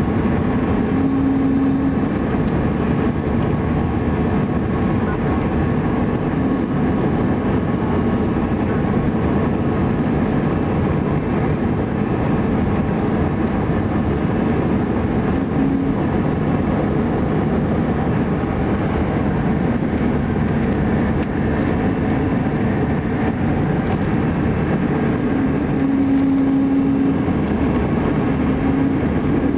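Steady engine and airflow noise of an Airbus A320 in its climb after takeoff, heard from inside the passenger cabin, with a low hum that fades in and out a few times.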